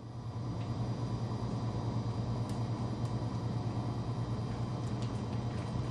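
USI roll laminator running in forward, its drive motor and rollers making a steady hum with a few faint ticks.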